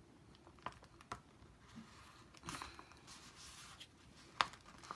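Faint rustling and a few light clicks from a handmade paper chip bag being handled and folded, with a sharper click near the end.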